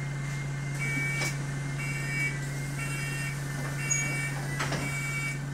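Bus engine idling with a steady low hum, heard from inside the saloon, while a short high electronic beep repeats about once a second from about a second in. A single brief knock comes near the end.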